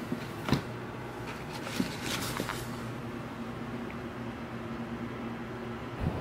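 Books and a magazine being handled on a small shelf: a knock about half a second in, a second lighter knock, and a brief rustle of paper about two seconds in, over a steady room hum.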